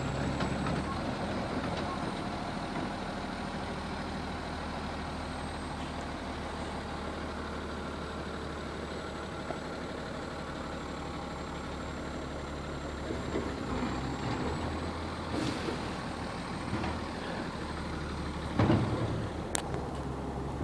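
Garbage truck's diesel engine running steadily with a low hum, and a loud thump near the end.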